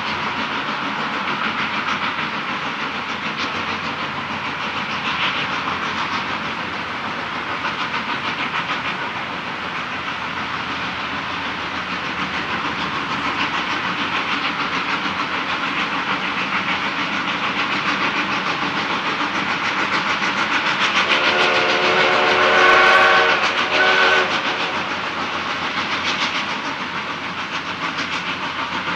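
Narrow-gauge steam locomotive working steadily, its exhaust and running gear making a continuous rapid chuffing. About two-thirds of the way through, its chime steam whistle sounds a long blast followed by a short one.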